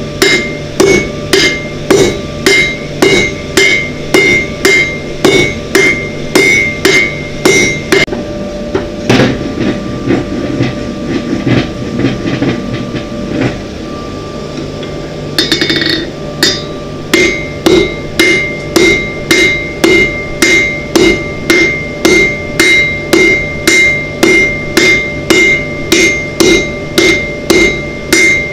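Hand hammer striking a red-hot bar on an anvil in a steady rhythm of about two to three blows a second, each blow leaving a short metallic ring. The blows stop for several seconds midway, then resume at the same pace.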